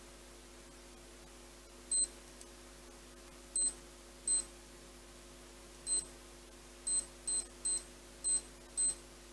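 Spintso Ref Watch 2X referee watch giving a short high-pitched beep at each button press while its alarm time is set: nine beeps, spaced unevenly at first and coming faster in the last couple of seconds.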